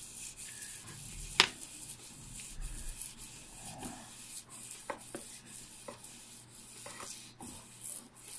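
Katana blade being drawn along dry 800-grit sandpaper on a rubber pad, honing the edge: repeated hissing scrapes of steel on abrasive paper. A sharp click about a second and a half in, with a few fainter clicks later.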